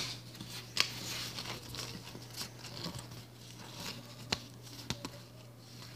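Faint taps and light rustling of trading cards being handled and flipped through, a few soft clicks scattered across a few seconds, over a low steady hum.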